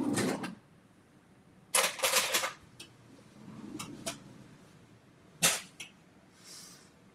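Kitchen drawer pulled open with utensils clattering, then scattered sharp clicks from handling a small bottle and a measuring spoon. The clatters come at the start and again about two seconds in, and the sharpest click at about five and a half seconds.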